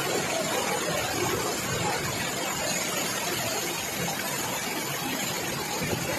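Steady rushing noise of heavy rain and floodwater flowing across a stone temple floor.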